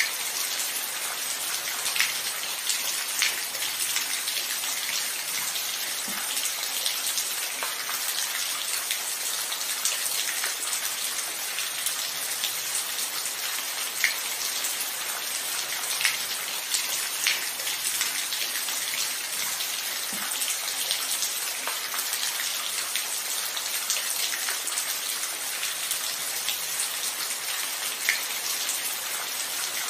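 Steady rain falling: an even hiss with scattered louder single drops ticking close by.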